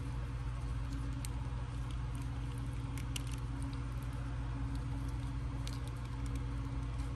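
Scattered faint clicks and taps of small plastic action-figure parts being handled as a hot-water-softened boot is pushed onto the figure's leg, over a steady low hum.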